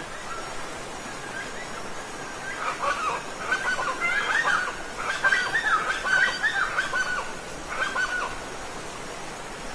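Steady rushing water of a waterfall, with a bird giving a rapid series of short calls from about two and a half seconds in until a little past eight seconds.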